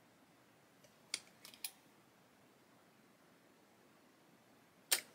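A few light clicks and taps of small plastic model parts and hobby tools being handled on the workbench: a quick cluster about a second in and one sharper click near the end, over quiet room tone.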